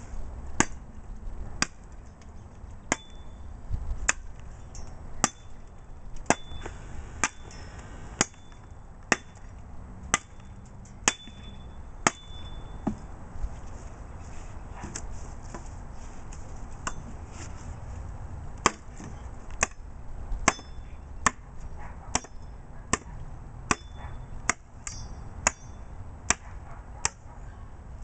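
Cold Steel Latin machete chopping a wooden branch into firewood: sharp chops at an uneven pace, roughly one a second, many of them leaving a short high ring.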